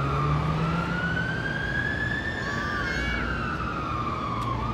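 Emergency vehicle siren wailing, sliding slowly up for about two seconds and back down for about two, over a low engine rumble.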